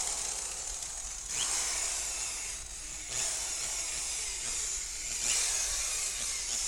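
Car body paint being polished on the side panel: a steady rubbing hiss that dips briefly twice and swells again between passes.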